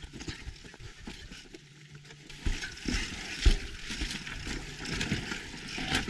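Mountain bike rolling slowly over a rough, technical trail: tyre and frame rattle with scattered sharp knocks, quieter for a moment about a second in, with the loudest knocks past the middle.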